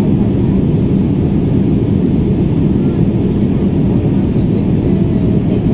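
Jet airliner cabin noise in flight: steady engine and airflow noise heard from inside the cabin. It is low-pitched with a constant hum.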